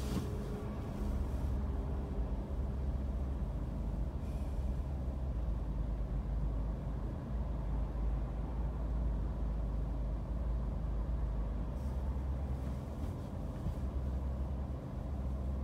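Low steady hum of a car idling while stopped, heard inside the cabin. Passing traffic outside swells past a few times, at the start, around four seconds and again near twelve to fourteen seconds in.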